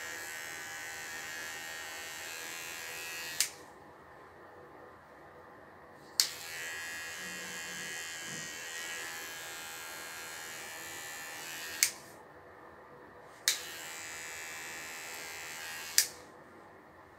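Cordless electric pet clipper trimming a puppy's face fur, running with a steady whirr. It is switched off and back on several times, each time with a sharp click of the switch: off about three seconds in, on again around six seconds, off near twelve, on near thirteen and a half, and off again near the end.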